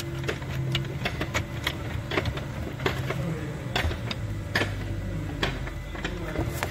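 Irregular light clicks and taps of hands handling a bolt and metal parts at the steering column coupling, over a steady low hum.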